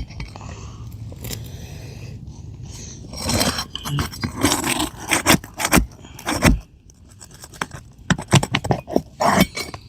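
Asphalt roof shingles being lifted and pried up with a metal tool: scraping, then from about three seconds in a run of sharp clicks, scrapes and light metallic clinks.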